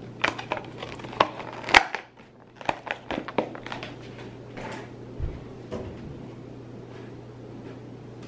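Kitchen handling noises as a paper bag of ground cinnamon is moved and put aside: a quick run of clicks, taps and rustles over the first few seconds with a sharper knock near two seconds, then one soft thump a little past five seconds, over a steady low hum.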